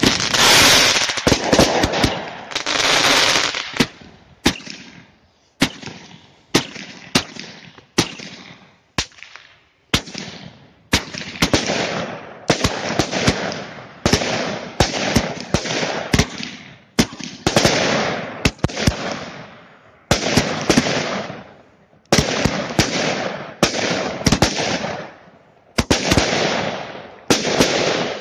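Category 2 consumer fireworks, a ground-fired battery, shooting continuously: a sharp bang every second or two, each followed by a fading crackling rush of noise as the shots burst.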